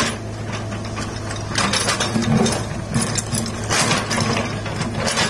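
Komatsu PC75 excavator's diesel engine running steadily while digging, with bursts of scraping and clattering as the steel bucket works through rocky soil, about one and a half seconds in and again near four seconds.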